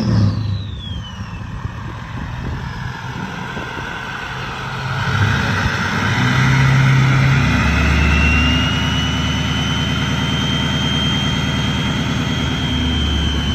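An engine running steadily with a low hum, under a whine that falls in pitch over the first two seconds and then rises again about seven seconds in and holds.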